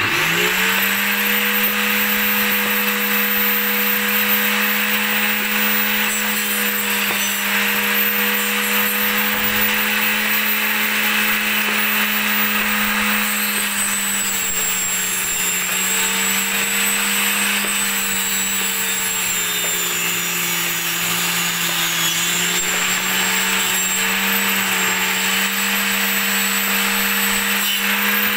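Small bench-top table saw motor starting up with a quick rising whine, then running steadily while ripping a thin strip of teak. Its hum drops in pitch under the load of the cut partway through and recovers near the end.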